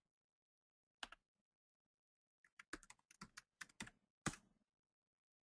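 Computer keyboard typing: a single keystroke about a second in, then a quick run of about ten keystrokes, the loudest near the end.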